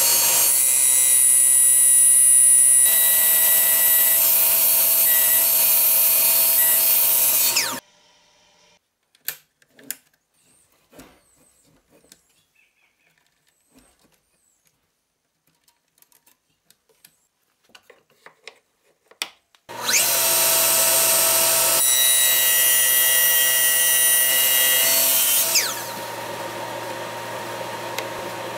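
HiKOKI miter saw motor running at full speed with a high whine, then winding down about eight seconds in. After some small clicks and knocks, it starts again with a rising whine about twenty seconds in, runs about six seconds and winds down, leaving a lower steady hum that carries on.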